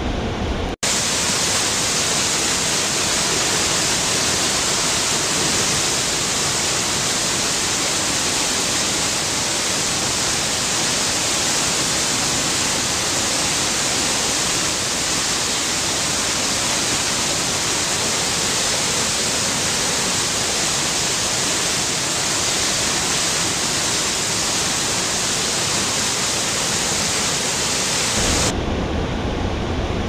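Water rushing and spraying in a steady hiss, heaviest in the high end, after a brief cut-out about a second in. Near the end it switches to a deeper, fuller rush of falling water.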